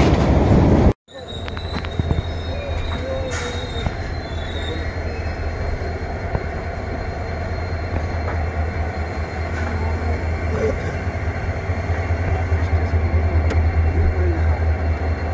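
Indian Railways passenger coach running, heard from inside the coach as the train rolls through a station: a steady low rumble of the carriage, with a thin high squeal in the first few seconds. It begins after an abrupt cut about a second in.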